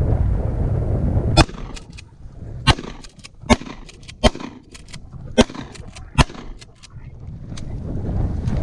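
A shotgun fires six times in quick succession, roughly a second apart, at liquid-filled 2-liter bottles that burst and spray. Wind rumbles on the microphone at the start and again near the end.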